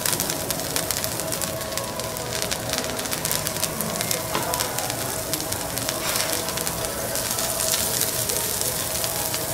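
Oil sizzling and crackling steadily on a hot teppanyaki griddle, with garlic cloves and thyme frying in it.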